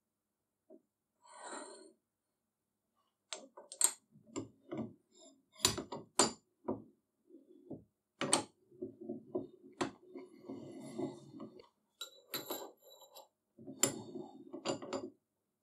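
Steel parts of a small arbor press clinking and knocking: a shaft and ball bearing being set on the slotted steel press table and the ram being worked. A string of sharp metallic clicks, with short stretches of rattling scrape.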